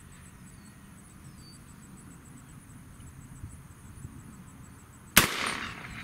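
A single shot from an AR-style 300 Blackout rifle firing a 178-grain ELD-X subsonic load, sudden and sharp about five seconds in, with a short ring-out after it.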